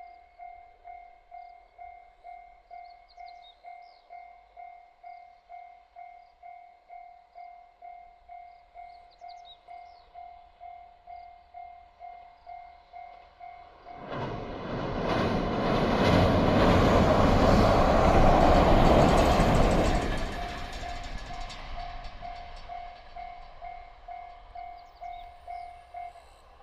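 Japanese level-crossing warning bell ringing steadily, about two dings a second. About halfway through, a JR Kyushu local train passes loudly for some six seconds and drowns the bell. The bell is heard again as the train fades and stops shortly before the end.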